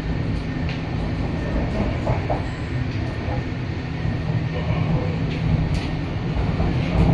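MTR East Rail Line electric train running, heard inside the carriage: a steady low rumble and hum with scattered short clicks.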